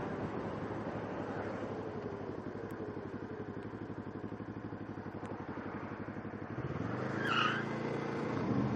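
Kawasaki Ninja 650R's parallel-twin engine, heard from the riding position, its note falling as the bike slows and then settling into a low, even pulsing. Near the end a steadier engine hum joins, with a brief high chirp.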